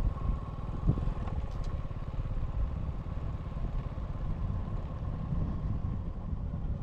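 A small engine running steadily at an even speed, with a faint steady whine and a small knock about a second in.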